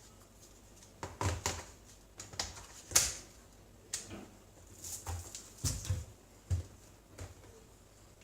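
Plastic clicks and knocks of a laptop battery pack being fitted into its bay and latched, an irregular run of about a dozen sharp taps with the loudest snap about three seconds in.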